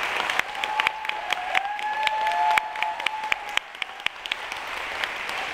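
Concert audience applauding, the clapping thinning out a little past halfway.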